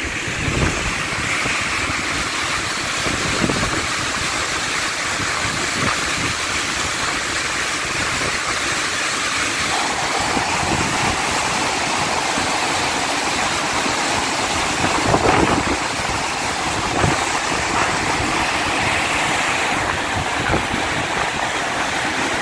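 Steady rushing roar of a mud-laden mountain river in flood.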